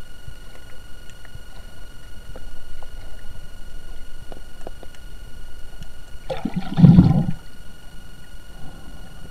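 Underwater camera's muffled water noise as it moves through the sea, with a low rumble and scattered faint knocks. A loud watery rush comes about six and a half seconds in and lasts about a second.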